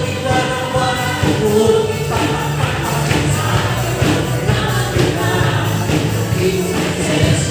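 A congregation singing a Tagalog praise and worship song together over band music, with hand clapping.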